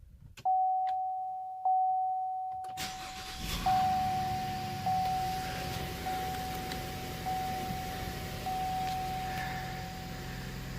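2014 Chevrolet Impala engine starting about three seconds in and settling into a steady idle, with a warning chime repeating about every second and a bit. The idle is much quieter now that the cracked exhaust manifold and catalytic converter have been welded, and there is no exhaust-leak noise.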